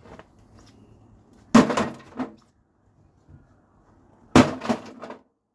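Two sharp impacts on a smashed microwave's metal casing, about three seconds apart, each followed by a brief clatter of loose, broken parts.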